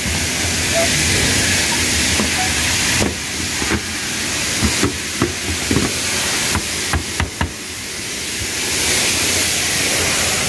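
Steady hiss, with a string of light clicks and knocks between about three and seven and a half seconds in as hands handle the car's trunk lid trim and panels.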